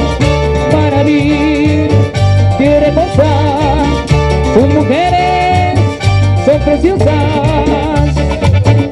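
Live Latin dance band playing, with a pulsing bass line and a wavering, sustained melody line over it; congas, a metal güira scraper, keyboard and electric guitar make up the band.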